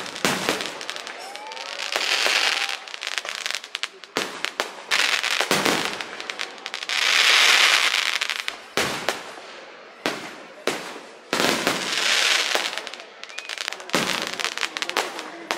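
Aerial firework shells bursting: a rapid string of sharp bangs, with longer crackling swells every few seconds. The loudest swell comes about halfway through.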